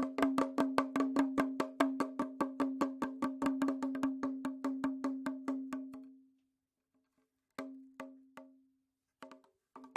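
Rattle drum (pellet drum) twirled so its beads beat the heads in a rapid, even patter of about seven strokes a second, each stroke ringing at one pitch. The patter dies away about six seconds in; after a pause come three slower single strokes, then a couple more as the twirling starts up again at the end.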